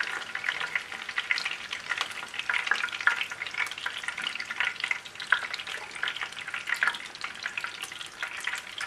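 Bone-in chicken drumettes (karaage) shallow-frying in a little oil in a frying pan, crackling and popping steadily. This is the first fry, at the point where the pieces come out to rest before a second, hotter fry to crisp them.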